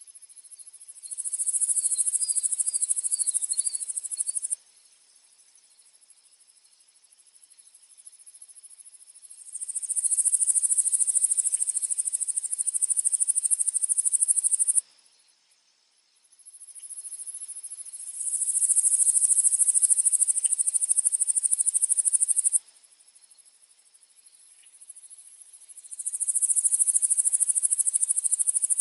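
Insects trilling, a high-pitched buzzing chorus that comes in bouts of four to six seconds: each swells up, holds, then stops abruptly, with quieter pauses of a few seconds between.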